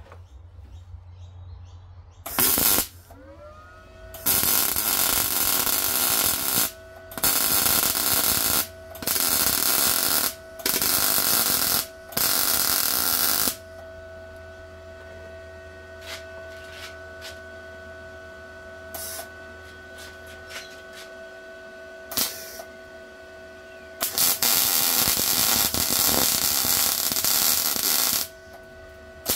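MIG welding arc from an Arccaptain MIG 200 crackling in separate runs on a motorcycle exhaust catalyst shell. There is one brief tack, then five runs of about one and a half seconds each, two short blips, and a longer run of about four seconds near the end. A steady whine carries on between the runs.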